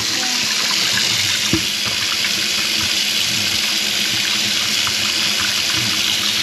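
Water running steadily from a faucet into a kitchen sink, with one light knock about a second and a half in.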